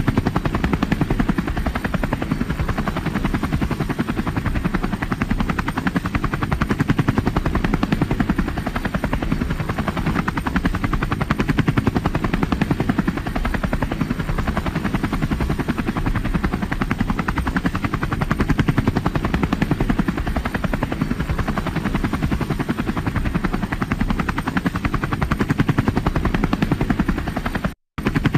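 Helicopter in flight, its rotor blades chopping in a steady, fast rhythm over a low engine drone. The sound cuts out completely for a split second near the end.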